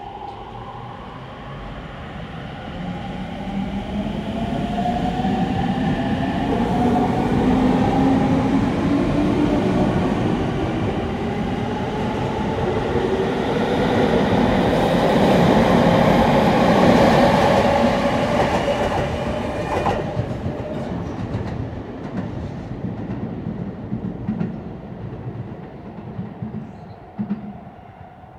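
Sotetsu 10000 series electric commuter train pulling away from the platform. Its traction motors whine in several tones that rise steadily in pitch as it speeds up, over the rumble of wheels on rail. It is loudest about two-thirds of the way through, then fades as the train leaves, with wheel clacks over rail joints near the end.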